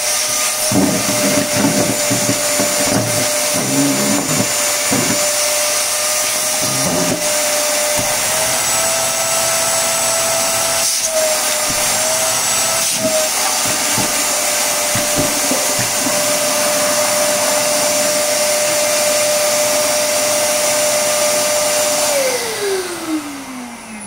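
YLW6263A wet/dry vacuum cleaner's brushed motor running with a steady whine, the hose sucking up small hard debris that rattles and clicks through it. Near the end the motor is switched off and its whine falls away as it spins down.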